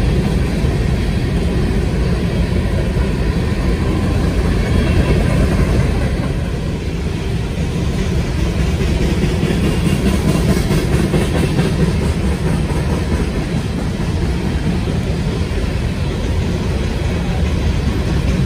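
Freight train rolling past, its cars making a steady noise on the rails.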